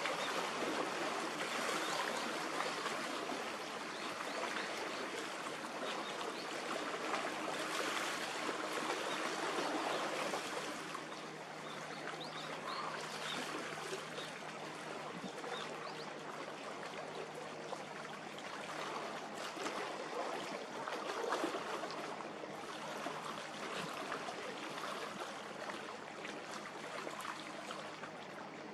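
Harbour water washing and lapping, an even splashing wash that eases a little after about ten seconds, with a faint steady low hum underneath.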